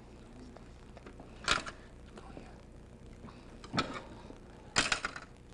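A few short clicks and knocks from dissecting scissors and hands working a fish in a metal tray, over a faint steady hum.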